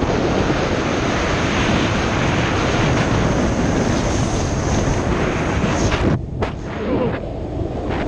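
Wind rushing over the microphone together with the roll of longboard wheels on asphalt, as the board is ridden lying down at speed downhill. About six seconds in the rush cuts off abruptly and comes back quieter.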